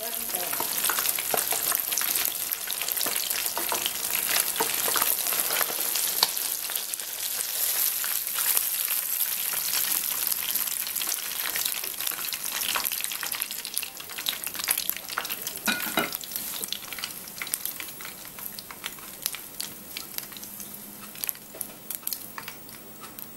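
Whole fish frying in a wok of hot oil: a steady crackling sizzle with many small pops, dying down over the second half as the fish are lifted out of the oil.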